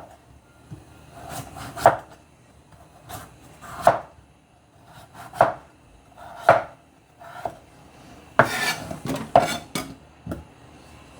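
A knife cutting the skin off a Chinese pumpkin, each stroke ending in a sharp knock on the cutting surface, about one every second or two. About eight seconds in comes a quicker run of scraping cuts.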